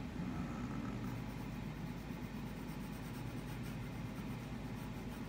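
Pencil lightly sketching on drawing paper: faint scratchy strokes over a steady low room hum.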